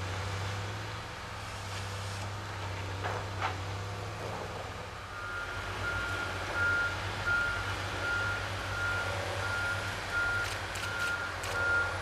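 Heavy forestry machinery's diesel engines running steadily; from about five seconds in, a log forwarder's reversing alarm beeps at an even rate of roughly two beeps a second. A few sharp knocks are heard near the start and again near the end.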